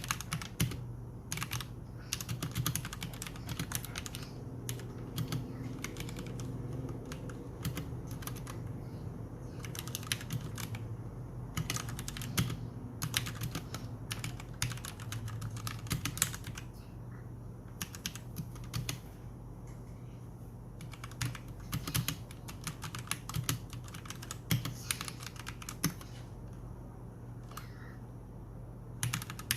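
Typing on a Royal Kludge G68 mechanical keyboard fitted with OEM-profile keycaps: rapid, irregular runs of keystroke clacks with brief pauses between bursts.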